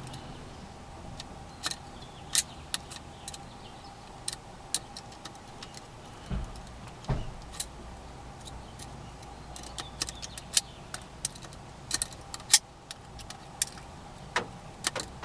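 A metal pick raking inside the dimple lock cylinder of a Club LX steering wheel lock, making irregular light metallic clicks and scrapes. Two duller knocks come a little after six and seven seconds in.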